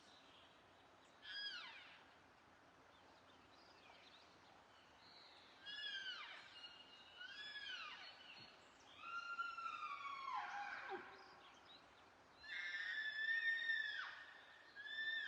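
Elk herd calling: a string of high-pitched mewing calls, each arching up and sliding down, several overlapping one another, with the longest and loudest near the end.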